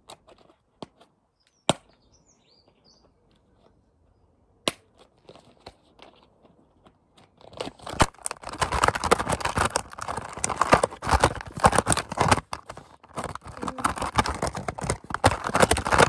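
A few isolated sharp clicks, then from about halfway a loud, dense crackling and rattling: a clear plastic tub holding clothes, used as a homemade washing machine, being handled and rubbed right against the microphone.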